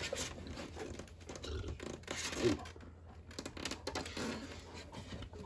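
Lid of a Hova-Bator egg incubator being lifted off and handled: light scraping, rubbing and small knocks of the lid against the base.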